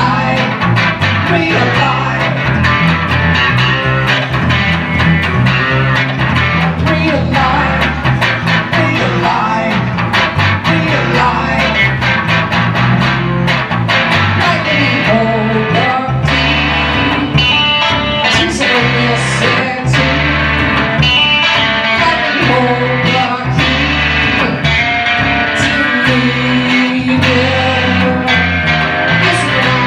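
A live electric guitar and Chapman Stick duo playing a rock song: plucked guitar lines over steady bass notes from the Stick.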